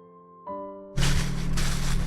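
Background music: a few soft piano notes ring out. About a second in, a louder layer cuts in, with a steady low hum and a swishing beat roughly twice a second.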